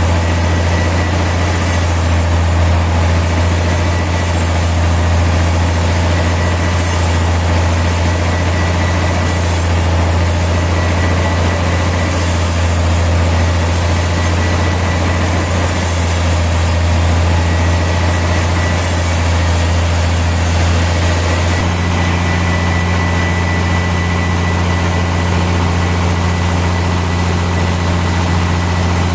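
Sawmill machinery running steadily with a deep hum and a thin high whine, with no cut being made; the sound shifts slightly about three quarters of the way through.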